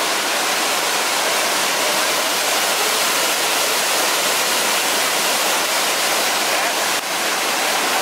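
Waterfall cascading down rock steps: a steady rush of falling water.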